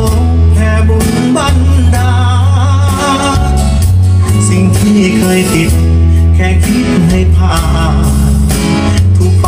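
A song with singing over a heavy bass line, played loud through a bandpass speaker box driven by a 4.5-inch Apple full-range driver, as a listening test of the driver.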